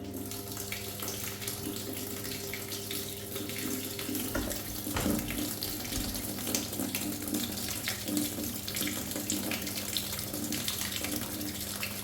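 Water rushing into the drum of a top-load washing machine as it fills at the start of a tub-clean cycle, over a steady low hum. A few low thuds come about halfway through.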